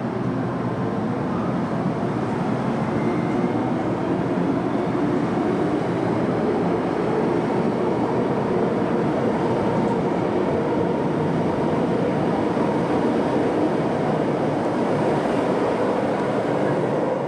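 MTR Island Line metro train running through an underground station behind the platform screen doors: a steady, loud rumble of wheels and motors that carries on throughout.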